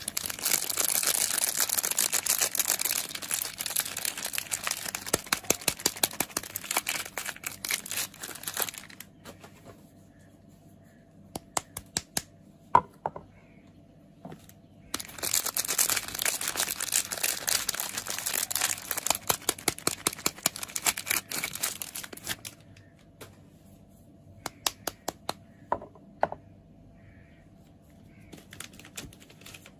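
Soap packaging being unwrapped: the wrapper crinkling and tearing in two long spells, with a few sharp taps or clicks in the pauses between them.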